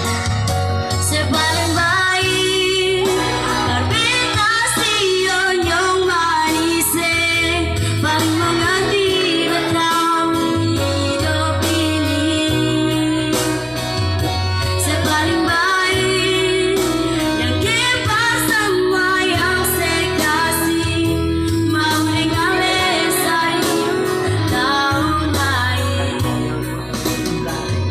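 A woman singing a slow Ambonese pop song with vibrato over keyboard backing with a steady, pulsing bass line.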